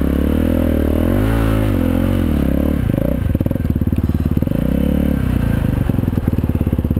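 Dirt bike engine revving up and dropping back under the throttle, then running at lower revs with a steady, even run of firing pulses from about three seconds in.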